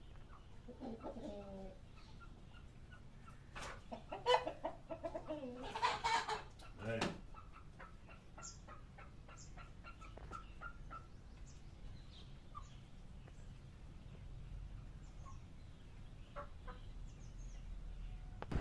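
Country hen clucking: a short call about a second in, then a louder run of calls between about four and seven seconds in. Faint scattered short chirps follow.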